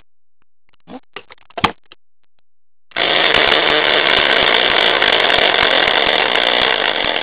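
Hand-spun prize wheel whirling, its red plastic flapper clattering rapidly against the zip ties around the rim. A few light handling clicks come first, then the spin starts abruptly about three seconds in and keeps up a loud, even rattle.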